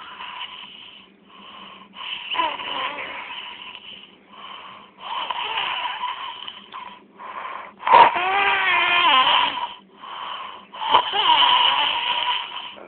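Loud snoring, one breath after another every second or two, each breath carrying a wheezy whistle that wavers and slides in pitch. The loudest breath starts sharply about eight seconds in.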